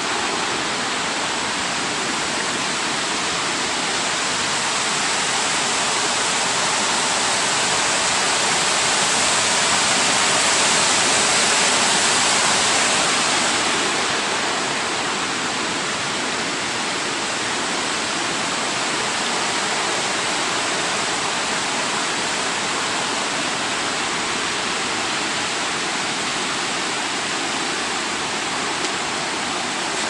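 Steady rushing of a mountain stream running over rocks, swelling for a few seconds near the middle.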